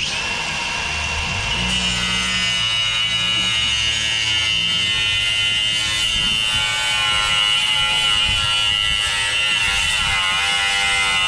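Milwaukee angle grinder starting up with a sudden high whine, then cutting through the truck's steel front bumper along a marked line, a steady loud whine with grinding noise underneath.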